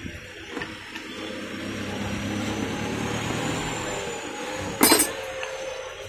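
Box spanner and rod tightening the nut of a stainless steel mixer grinder jar's blade coupling, with a steady low hum throughout and one sharp metallic clank about five seconds in.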